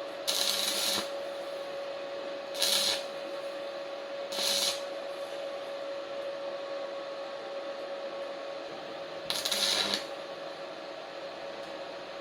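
Ryu 450-watt stick welder striking short arcs: four brief bursts of crackling, the first and last lasting under a second, over a steady electrical hum.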